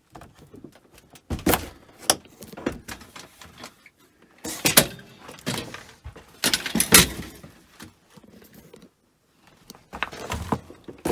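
A wooden interior camper door being worked open against boxes and clutter piled in front of it: irregular knocks, thuds and rattling clatter, loudest about five and seven seconds in.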